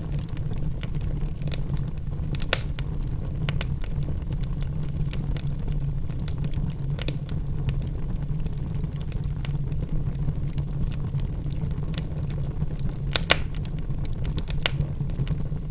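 Wood fire burning in a fireplace, crackling with irregular sharp pops over a steady low rumble of the flames; the loudest pops come about two and a half seconds in and near the end.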